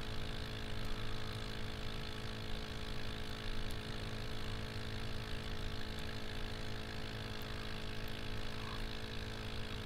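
A steady low mechanical hum made of several constant tones, holding the same pitch and level throughout.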